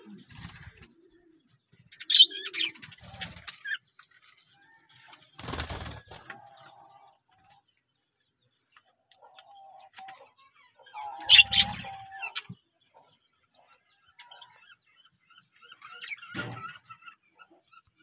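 Budgerigars chirping and whistling in short, scattered bursts, with a brief flutter of wings about five and a half seconds in.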